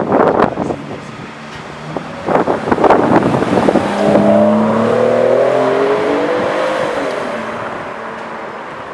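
Aston Martin's engine passing close by: two bursts of sharp exhaust crackles as it revs, then a steady engine note that falls slightly in pitch and fades as it drives away.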